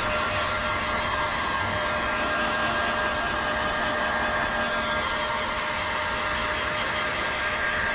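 Electric heat gun running steadily: a constant rush of blown air with an even motor whine, held close to window tint film to shrink it.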